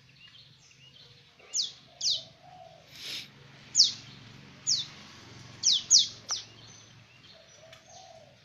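Young prinias (ciblek) chirping: about eight short, high chirps that slide sharply downward, one or two at a time at irregular intervals.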